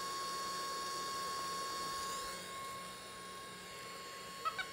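Small electric bubble machine running, its fan motor giving a steady whir with a high whine. About two and a half seconds in, the whine drops in pitch and the sound gets quieter as the motor slows. A few light clicks come near the end.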